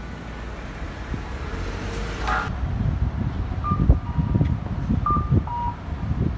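Street traffic ambience. From about two and a half seconds in, wind buffets the microphone in irregular gusts, and a few short, high electronic beeps sound.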